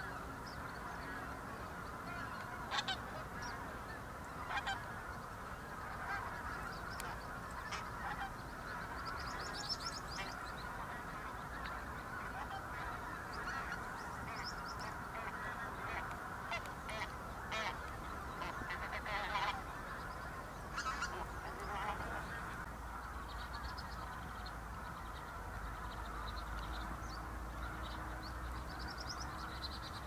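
A large flock of geese honking, many calls overlapping in a steady chorus, with single louder calls standing out now and then.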